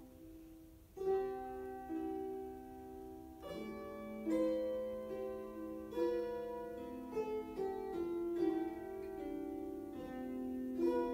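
Ensemble of lyres (Leier) plucked together, playing long-ringing chords and a melody. Softer at first, with new notes coming in about a second in and a fuller chord with a lower bass note at about three and a half seconds.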